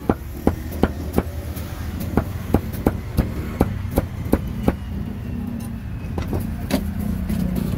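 Meat cleaver chopping grilled pork on a chopping block: a steady run of sharp strikes, about three a second, which pauses about five seconds in, with one more strike shortly after. Steady traffic hum underneath.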